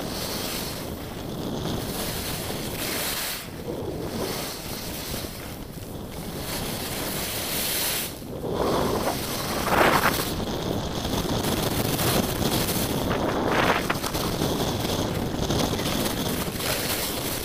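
Wind rushing and buffeting over the camera's microphone during a fast ski descent, mixed with the hiss of skis on the snow, with louder surges a couple of times in the middle.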